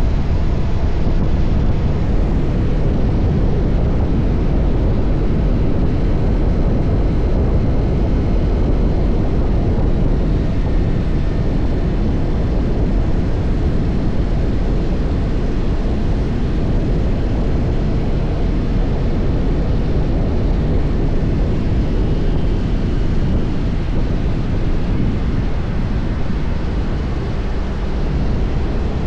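TVS Apache RR310's single-cylinder engine with its stock exhaust running at a steady cruise, under heavy wind rush on the microphone. The level eases slightly near the end.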